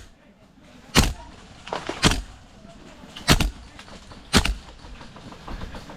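Airsoft gun firing single shots: four sharp cracks about a second apart, with a couple of fainter pops between the first two.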